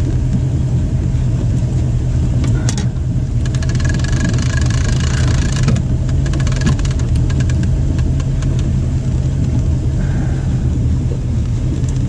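Boat engine running steadily at trolling speed, a constant low drone. About three seconds in, a run of sharp clicks and metallic rattling lasts a few seconds as the lure's hooks are worked free of the fish in the landing net.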